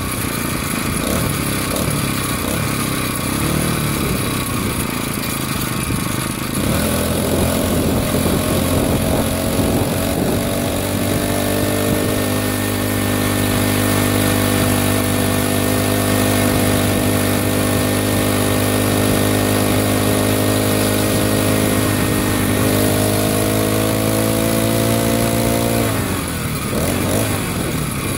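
Motorized bicycle's small engine under way with wind and road noise. For the first six seconds or so there is mostly noise; then the engine settles into a steady note, rises a little near the end, and drops away a couple of seconds before the end.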